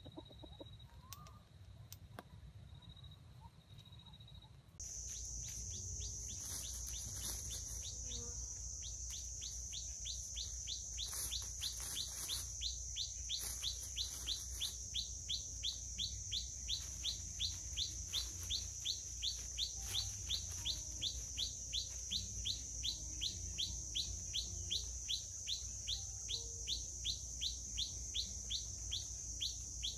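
Tropical forest ambience. After a few faint bird chirps, a steady high-pitched insect drone cuts in suddenly about five seconds in. Over it, a long run of short rising chirps repeats about two or three times a second.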